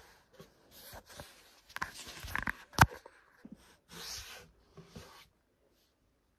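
Rustling and scraping handling noises close to the microphone, broken by small clicks and one sharp, loud click a little before the middle; the sound stops abruptly about five seconds in.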